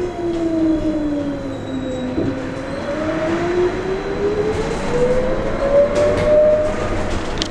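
Electric traction drive whine of a New Flyer XT40 trolleybus with a Vossloh Kiepe drive, heard from inside the cabin. The whine falls in pitch as the bus eases off for about two seconds, then rises steadily as it speeds up again, over road and body rumble.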